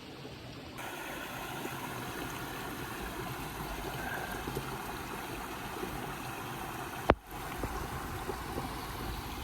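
Mountain stream water rushing steadily, becoming fuller and brighter a little under a second in, with a single sharp click about seven seconds in.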